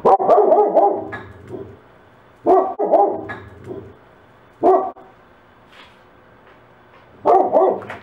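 German Shepherd–Husky mix barking in four bursts: the first two run about a second each, the third is a single short bark, and the last comes near the end.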